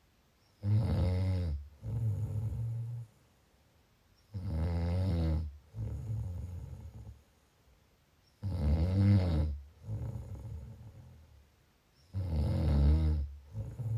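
Snoring in a steady rhythm: four breaths about four seconds apart. Each is a loud snore with a wavering pitch, followed at once by a lower, buzzing rumble.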